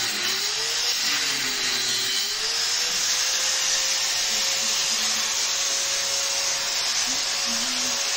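A small motor running steadily with a strong hiss and a whine that wavers in pitch in the first two seconds, then holds level.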